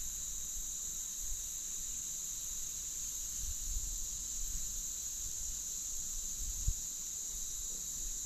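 Steady high-pitched chorus of insects, unbroken throughout, with a faint low rumble and one soft knock about two-thirds of the way through.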